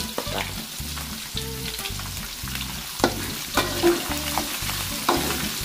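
Garlic, shallots and small dried anchovies sizzling in hot oil in a large aluminium wok, stirred with a metal spatula. The spatula scrapes and clinks against the pan several times in the second half.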